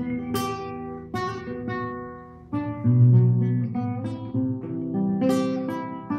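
Acoustic guitar playing a run of strummed and plucked chords, each ringing on after it is struck, louder from about two and a half seconds in.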